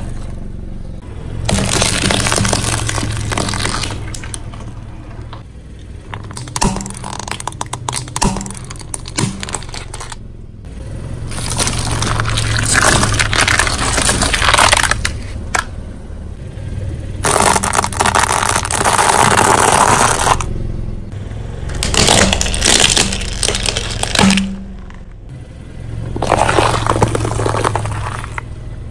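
A car tire rolling over and crushing soft foods (round eggplants, jelly, bell peppers) on concrete: about six separate spells of crushing and splitting, each lasting a few seconds, over a steady low hum.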